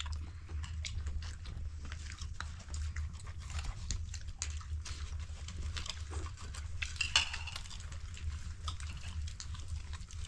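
People eating fruit and nuts: irregular small crunches, chewing and clicks of peeling and cutting oranges on plates, with a sharper click about seven seconds in, over a steady low hum.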